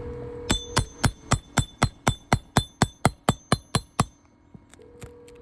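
A hammer lightly tapping across an asphalt shingle tab, about fourteen quick knocks at about four a second with a faint metallic ring. This is a condition check of the aged shingle: the tapping shakes loose granules and shows how brittle it is.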